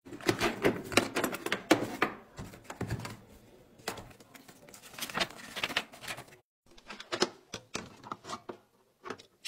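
Rapid clicks, taps and rattles of tools and plastic parts being handled in a plastic tool case, with a softer rustle of an instruction sheet being lifted. The clicking is dense for about six seconds, stops briefly, then comes back sparser.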